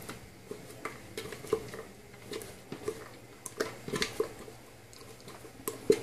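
Soft, scattered scrapes and light taps of a silicone spatula working thick, sticky bulgur-wheat kibe paste out of a plastic blender jar.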